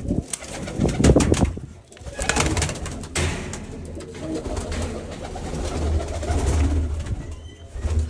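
Domestic pigeons cooing in a loft, under loud rustling noise with a low rumble that is heaviest in the first second and a half.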